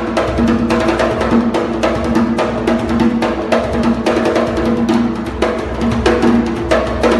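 Drums being played in a fast, steady rhythm of many strikes, with sharp, dry hits over a ringing low drum tone.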